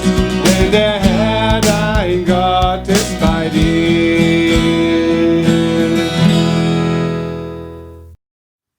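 The closing line of a children's worship song, sung over strummed acoustic guitar. A final chord rings out and fades away, then silence shortly before the end.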